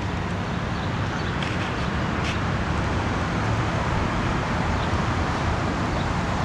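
Steady road traffic noise: a continuous rush of cars on a road, with a low rumble underneath.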